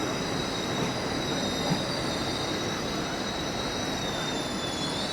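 Train wheel flange squeal on curved track: a steady high-pitched squeal with fainter higher overtones that dips slightly in pitch near the end, over the low rumble of a train moving slowly through the station.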